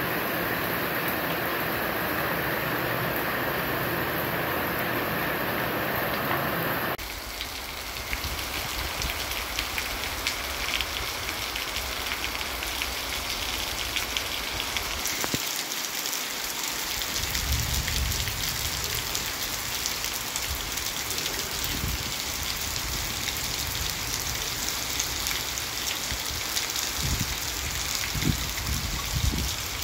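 Steady heavy rain falling on a street and roofs. About seven seconds in it switches abruptly to a different rain recording with a finer patter of drops, with irregular low rumbles in its second half.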